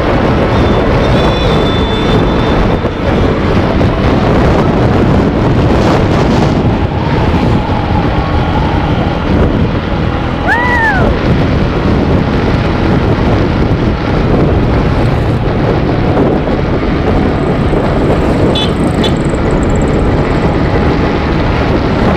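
Wind buffeting the microphone and a motorcycle running at road speed, a steady rushing noise. About halfway through comes a short tone that rises and then falls.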